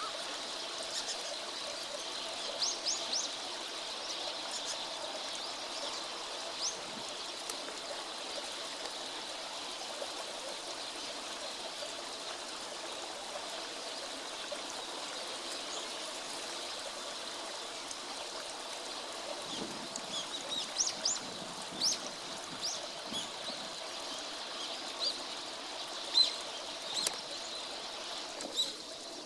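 Steady rush of flowing water, with short high bird calls scattered through it: three quick notes about three seconds in and a cluster of calls in the last third.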